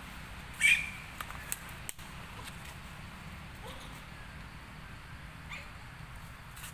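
A young long-tailed macaque gives one short, high squeal about half a second in, followed by a few faint squeaks over a steady low background noise.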